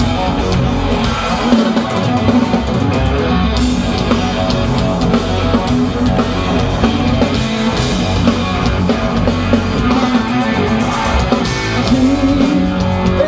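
Live rock band playing loud through a PA: distorted electric guitar, bass and drums in a steady groove, the instrumental opening of a song before the vocals come in.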